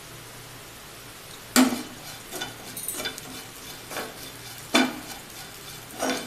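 A spatula stirs and scrapes grated raw banana around a frying pan, with sharp knocks against the pan about one and a half, four, five and six seconds in. A faint frying sizzle runs underneath.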